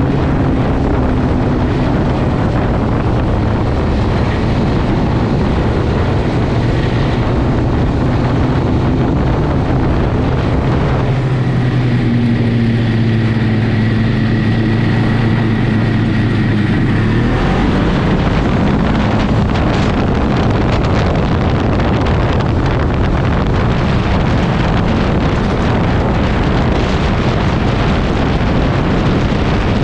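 Ski-Doo snowmobile engine running steadily at cruising speed, with wind and track noise. For several seconds near the middle the low rumble drops away and a steady engine hum stands out more clearly.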